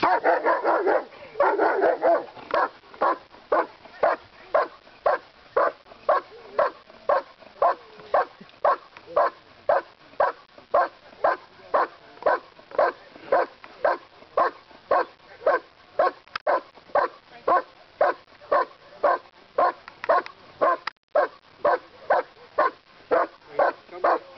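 German Shepherd barking steadily at a helper standing in a blind, rapid at first and then settling into about two barks a second: the bark-and-hold of IPO protection work, barking at the sleeve without biting.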